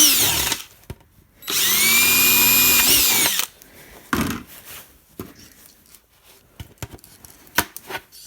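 Power drill with a small bit boring seed holes in a plastic coffee can: the motor winds down about half a second in, then spins up again for a steady run of about two seconds and stops. Light clicks and knocks of the can and drill being handled follow.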